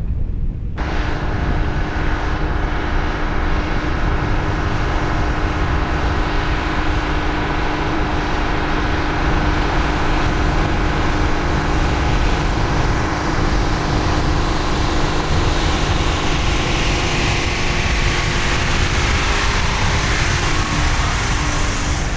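A motor vehicle's engine running at a steady speed under heavy wind and road rumble, cutting in abruptly just under a second in.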